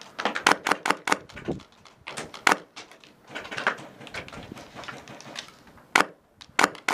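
Airsoft gunfire in irregular sharp cracks: a quick cluster in the first second, then single shots about a second apart, and a few more near the end.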